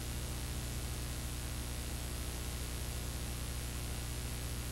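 Steady hiss with a low electrical hum underneath: the noise of a blank stretch of old videotape with no programme sound.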